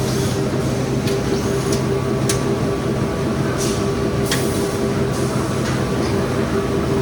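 Corrugated-carton flexo printer slotter die-cutter folder-gluer line running steadily: a loud, even machine drone with a held hum, broken by a few brief high hisses or clicks at irregular moments.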